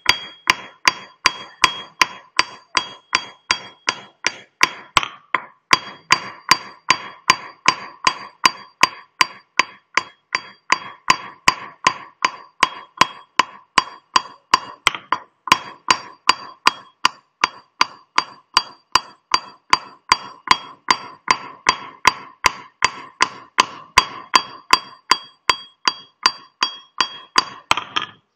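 Small hammer striking a steel chisel point against a stone grinding slab (shil), pecking pits into its face to roughen the grinding surface. The strikes come steadily, about two a second, each a sharp tap with a short metallic ring, with brief pauses about five and fifteen seconds in.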